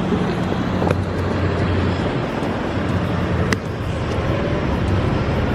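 Gas station air compressor running with a steady hum and hiss as the air hose is fitted to a flat tire, with a couple of sharp clicks.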